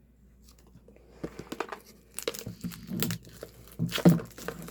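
Plastic wrapping crinkling and tearing as it is pulled off an album package: irregular crackles that start about a second in and get louder, loudest near the end.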